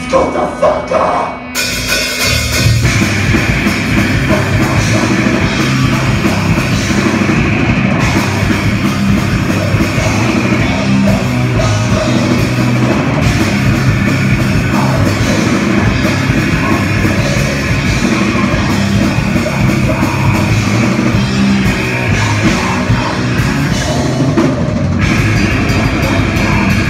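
Live heavy metal band playing loud: distorted electric guitars, bass and drum kit. A few stop-start hits open the passage, then the full band comes in about a second and a half in and plays on steadily.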